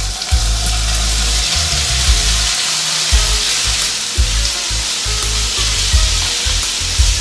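Diced Roma tomatoes sizzling steadily in hot olive oil over sautéed shallot and garlic in a frying pan, stirred with a wooden spatula near the end.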